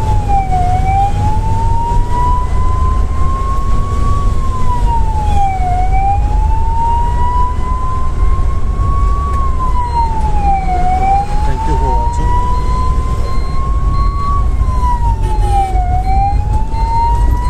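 Ambulance siren wailing in a slow rise and quicker fall that repeats about every five seconds, heard from inside the ambulance's cab over a steady low engine and road rumble.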